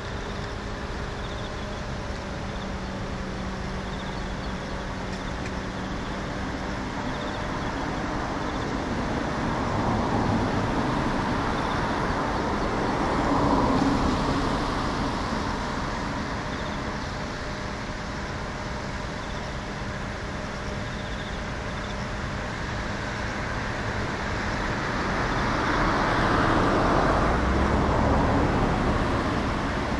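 Boeing 767-300 airliner's jet engines running at taxi power as it rolls along the taxiway, a steady rushing whine. The noise swells twice, once about a third of the way in and again near the end as the aircraft turns broadside.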